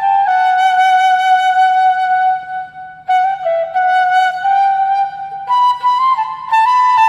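Flute music: a slow single melody line of long held notes that step and bend between pitches.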